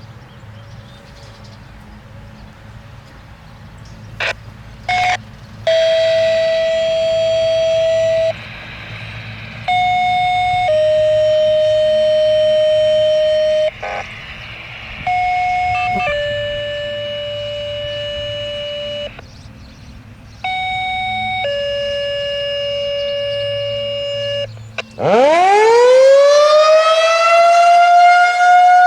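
A series of steady electronic tones in pairs, each a short higher tone followed by a longer lower one, over a low hum. About 25 seconds in, a Federal Signal 2001-130 electromechanical siren starts winding up, its pitch rising steeply, then levelling off and getting loud near the end.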